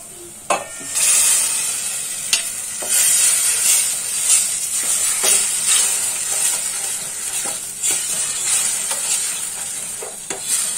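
Chopped colocasia (alu) leaves sizzling loudly in hot oil and masala paste in a steel pot, the sizzle starting about a second in, while a steel ladle stirs and knocks against the pot now and then.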